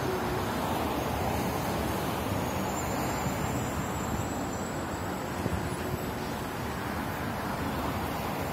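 Steady road traffic noise: cars and other vehicles passing on a multi-lane city street, an even rush without distinct events.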